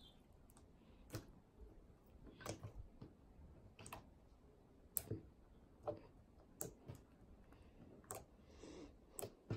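Glitter slime being kneaded and pressed together by hand, giving faint sharp little clicks and pops about once a second as air pockets in it burst.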